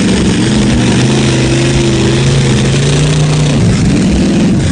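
Motor vehicle engine revving hard: the pitch climbs, holds high for a couple of seconds, drops off near the end, then starts climbing again.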